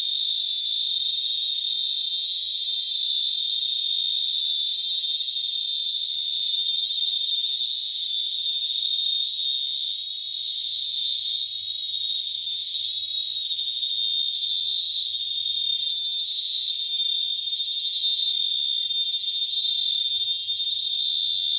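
Small cicadas (the 'cigarrito') singing in chorus: one continuous, thin, shrill buzz at a high, steady pitch that barely wavers.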